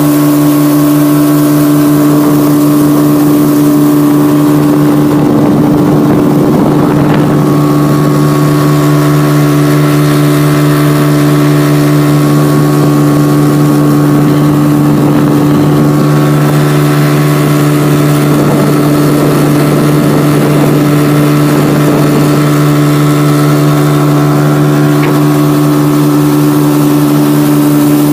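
Motorboat engine running at a steady speed, a loud drone whose pitch does not change.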